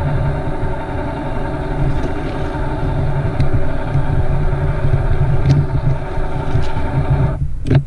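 Battery-powered caulk gun's motor running steadily as it drives the plunger to push out caulk, stopping abruptly about seven seconds in.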